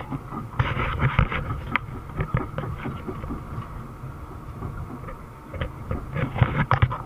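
Caterpillar D5 dozer heard from inside its cab: the diesel engine running with a steady low rumble, and the steel tracks clanking and rattling in two spells, about a second in and again near the end.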